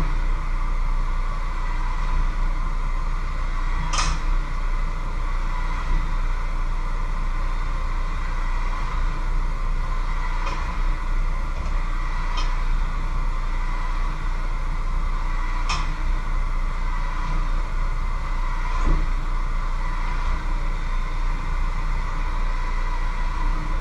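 A steady mechanical hum with a low drone fills a small kitchen, broken five times by short, sharp clicks and clinks of kitchen utensils and containers as food is prepared at the counter; the loudest clink comes about four seconds in.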